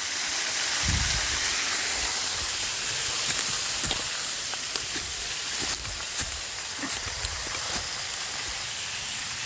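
Waterfall's steady rush of falling water, with scattered soft knocks and clicks close by.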